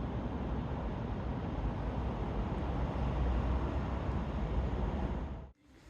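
Steady rain noise with a deep rumble underneath, cutting off abruptly near the end.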